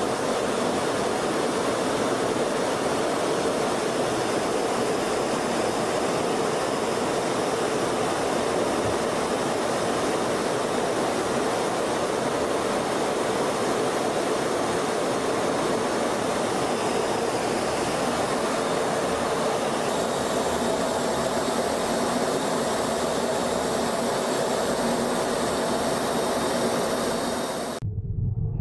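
Steady roar of a jet aircraft in flight, engine and rushing air, with faint high whining tones; it cuts off abruptly near the end and gives way to a low rumble.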